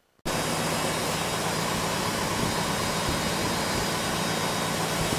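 Mazda RX-7 FC rotary engine idling steadily at about 1,000 RPM with no exhaust system fitted, running on a MegaSquirt 2 engine controller. It cuts in abruptly after a brief moment of silence.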